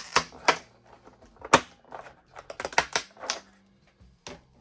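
Clear plastic packaging crinkling and crackling as it is handled and pulled away, in a run of irregular sharp crackles that stop shortly before the end.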